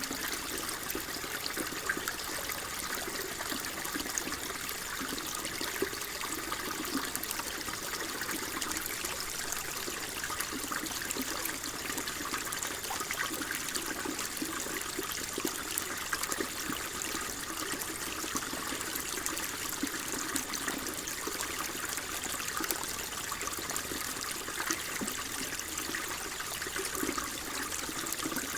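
Shallow water flowing steadily, with continuous small trickling and bubbling.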